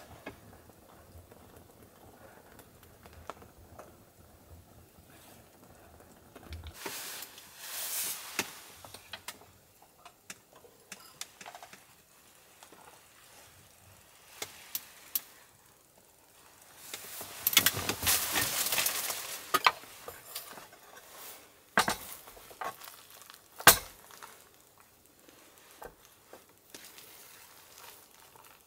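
Meal-prep handling sounds: the ceramic lid of a clay rice pot and dishes clinking and knocking, and chopsticks working rice, with scattered sharp clicks. Two stretches of soft hiss come in, one about a quarter of the way in and a longer one past the middle.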